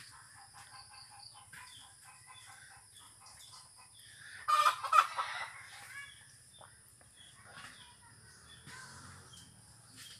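A rooster crowing once, about four and a half seconds in, amid many short, quieter chicken calls.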